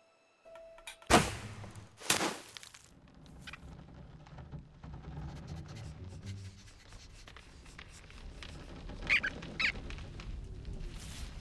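Animated-film sound effects: two sudden loud noises about a second apart near the start, then a low steady rumble, and two short high-pitched cartoon rodent squeaks about nine seconds in.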